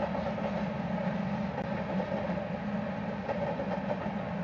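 Covered hopper cars of a freight grain train rolling past, a steady rumble of wheels on rail.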